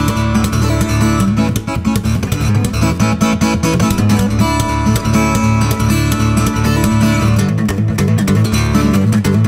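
Background music: a guitar-led song with plucked and strummed acoustic guitar and a steady beat.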